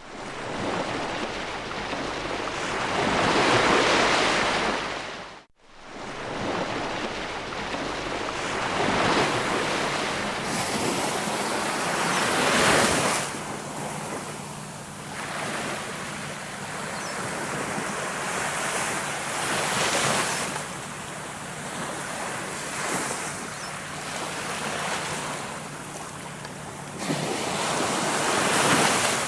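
Sea waves washing ashore, swelling and falling back every few seconds, with wind buffeting the microphone. There is a brief break about five seconds in, and a faint steady low hum underneath from about nine seconds on.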